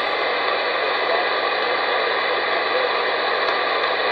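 Steady static hiss from a President Lincoln 11-metre transceiver's speaker, the receiver open with no voice coming through, while waiting for the other station to reply.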